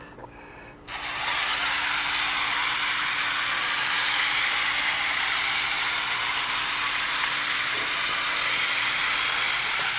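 The battery-operated motor and gearing of a vintage Alps tin-litho Boeing 707 toy airliner switch on about a second in and run with a steady hissing whir as the toy taxis. This motor noise is all there is of the toy's advertised 'realistic jet sounds'.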